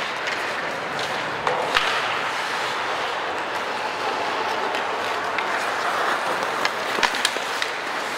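Ice hockey in play: skate blades scraping the ice over steady rink noise, with a few sharp clacks of sticks and puck, a couple just under two seconds in and two more about seven seconds in.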